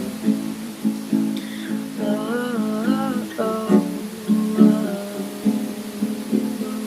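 Acoustic guitar strummed in a steady rhythm of chords. About two seconds in, a wordless sung line with vibrato lasts a second or so, over a faint steady hiss of rain sound.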